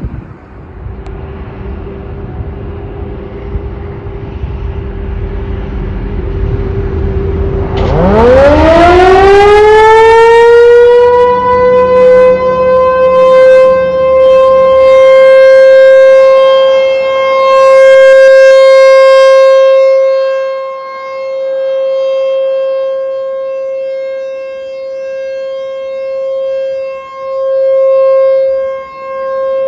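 American Signal Corp. Tempest T-128 electro-mechanical rotating siren starting up about eight seconds in, its pitch rising quickly and levelling off into a loud steady alert tone. From about two-thirds of the way in, the tone swells and fades as the rotating siren turns toward and away. Before it starts there is only a low rumble.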